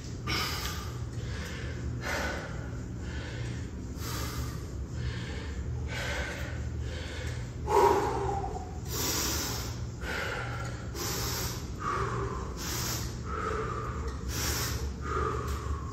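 A man breathing hard after a set of double kettlebell front squats: heavy, noisy breaths about once a second, with one louder, voiced exhale about eight seconds in.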